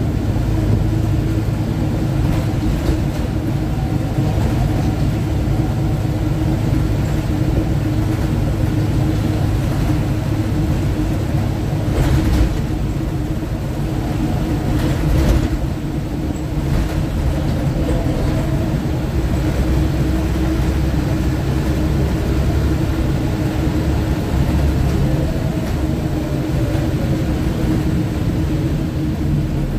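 Scania OmniTown single-deck bus on the move, heard from inside the passenger saloon: steady engine drone and road rumble. Two sharp knocks or rattles come about halfway through.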